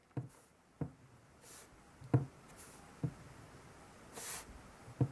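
Fingertip taps on a smartphone touchscreen, about five soft, irregularly spaced taps, with a brief soft rustle about four seconds in.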